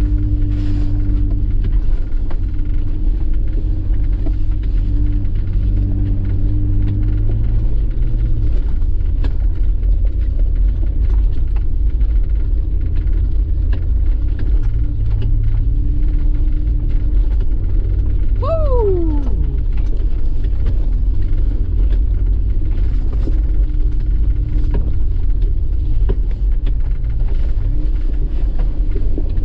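Toyota Land Cruiser's engine running low and steady in four-wheel-drive low range, heard from inside the cab, with scattered knocks and rattles from the truck over the rough snowy trail. Its note drops about eight seconds in and rises again a few seconds later. A brief falling whistle-like tone sounds about two-thirds of the way through.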